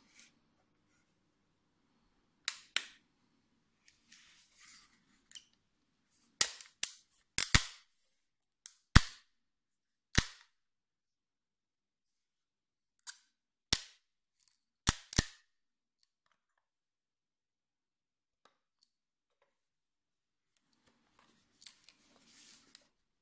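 Sharp plastic clicks and knocks from a hand-held rechargeable LED work light being handled and turned over, about nine separate clicks, some in quick pairs, with faint rustling of hands between them.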